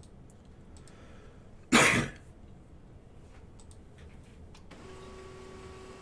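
A single short cough about two seconds in, with a few faint computer-mouse clicks around it. A faint steady tone comes in near the end.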